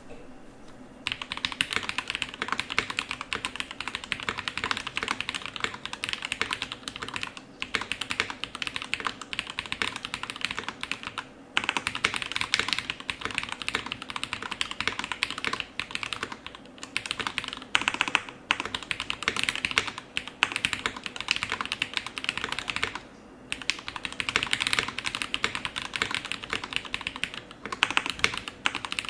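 Fast typing on a Drop CSTM80 mechanical keyboard with Gateron Brown tactile switches: a dense run of key clicks that starts about a second in, with a few short pauses.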